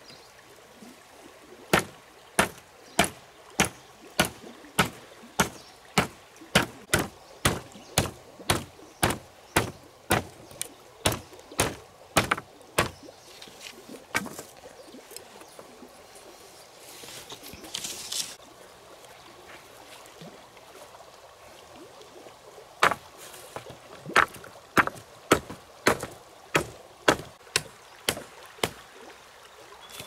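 A steady run of sharp knocks, about three every two seconds, that stops for roughly ten seconds midway and then starts again. A brief hiss comes in the pause.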